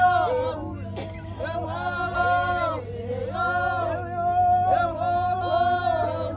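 A group of voices singing a traditional Xhosa song together, holding long notes of about a second each that slide at their ends.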